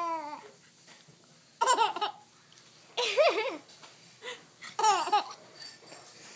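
Baby laughing while being tickled: three main bursts of high-pitched laughter about a second and a half apart, with a couple of short small sounds between them.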